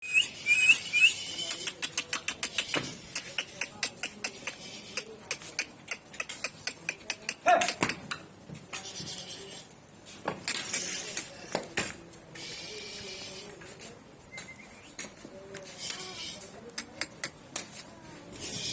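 Goats in a pen: a run of quick, sharp clicks and taps, rapid for the first several seconds and then sparser, with a few short high calls.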